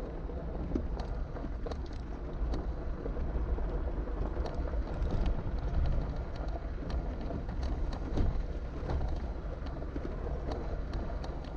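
Jeep Gladiator driving slowly along a gravel dirt track: a steady low rumble of tyres and running gear, with frequent sharp ticks and clicks from gravel and rattles.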